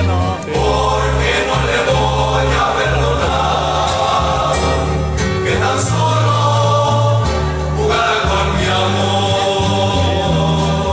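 Music with a choir singing over a steady bass line.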